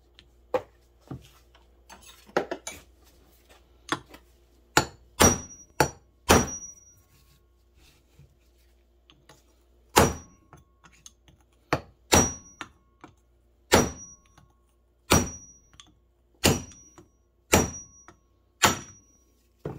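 Hammer striking a steel punch to drive a bearing out of a snowmobile skid idler wheel hub. There are about eleven sharp metallic blows, each leaving a short high ring: a quick run of four about five seconds in, then single blows every second or so, after a few light clinks of parts being handled.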